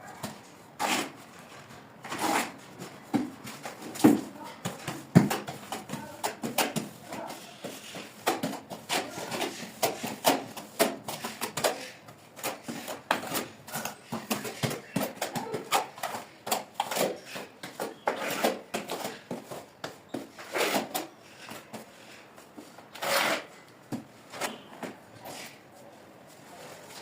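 Irregular knocks, taps and clatter of hand work, with a few louder knocks scattered through.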